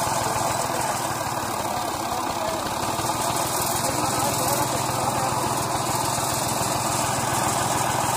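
Massey Ferguson tractor's diesel engine idling steadily.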